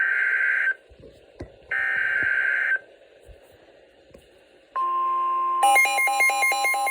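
Emergency Alert System data header: two roughly one-second bursts of rapid digital screeching about a second apart. About five seconds in, a steady alert tone starts, and shortly after a fast warbling two-pitch alarm tone joins it, the attention signal that comes before a severe thunderstorm warning.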